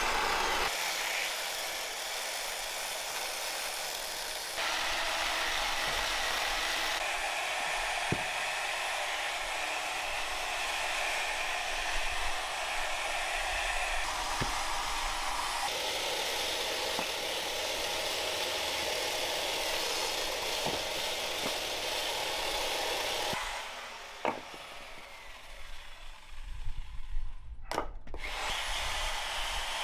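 Chainsaw cutting through logs, the sound shifting abruptly in several places, with a few sharp knocks. Near the end the saw stops and wooden logs clatter against each other.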